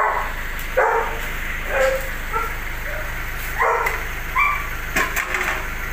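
A dog giving short barks and yips, about six in all and irregularly spaced, over a steady low hum.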